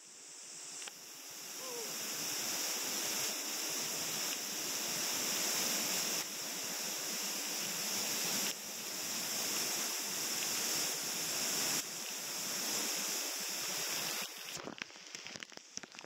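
Steady rushing hiss of a waterfall heard close, growing louder over the first couple of seconds. Near the end it turns into an irregular crackling patter as spray from the falls strikes the camera.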